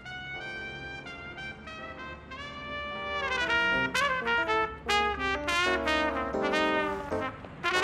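Trumpet playing a melody of short and held notes, getting louder about three seconds in.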